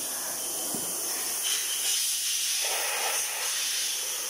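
A steady high hiss.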